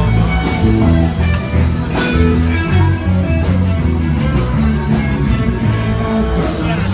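A live band playing rock-style music with guitar over a loud, heavy bass line.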